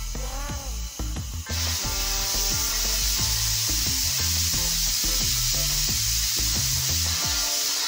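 A steady hiss from cooking on a gas stove starts suddenly about one and a half seconds in and runs on over background music with a beat.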